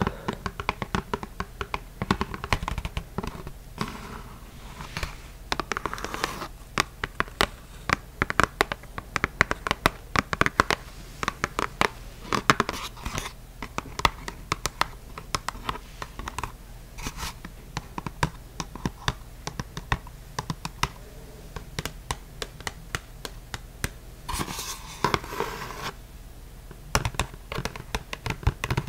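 Long fingernails tapping and scratching on a kraft-paper card, a dense run of quick clicks and scrapes, with a stretch of rubbing near the end.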